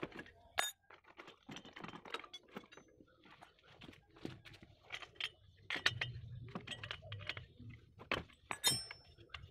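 Irregular metallic clicks and clinks of hand tools and small parts being handled on a Pro Tanaka brush cutter's engine as it is taken apart.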